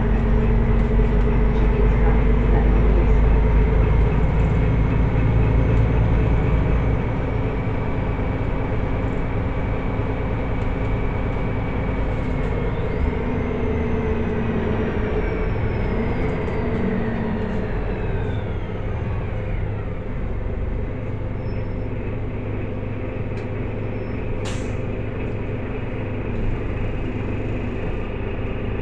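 Solaris Urbino 18 articulated city bus running, heard from inside the cabin: a heavy low rumble that eases off about seven seconds in, with a steady drivetrain whine. A higher whine rises and then glides down in pitch, fading about twenty seconds in, and there is one sharp click near the end.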